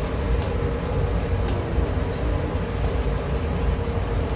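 Steady low machinery rumble with a faint steady hum on top, the background drone of a ship's machinery and ventilation in the galley, with a few light clicks.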